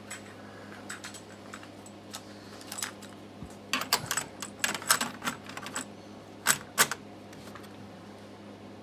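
A cassette being pushed into the front-loading tape mechanism of a Centrex by Pioneer KH-767 receiver: a few light clicks, then a cluster of plastic and mechanical clicks and clatters about four seconds in, and two sharp clicks a moment later, over a low steady hum.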